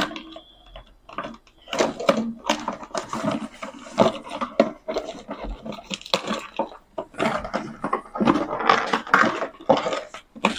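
Cardboard packaging rustling and scraping as it is handled, with scissors cutting the plastic straps that hold a toy truck in its box insert: irregular, stop-and-go clatter and snips.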